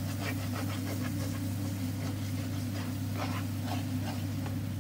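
Wooden spatula stirring and scraping thick atta halwa in a nonstick pan: a run of soft, irregular scraping strokes as the roasting halwa begins to release its ghee. A steady low hum runs underneath.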